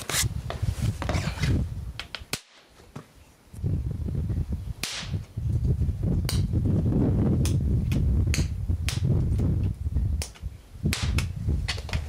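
A dozen or so short, sharp cracks and snaps, spread unevenly, over a loud low rumble that starts about three and a half seconds in and fades out about three seconds before the end.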